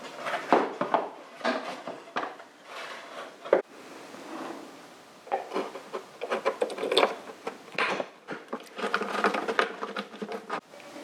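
Irregular clatter, knocks and rubbing scrapes of tools and parts being handled, coming in clusters with short pauses.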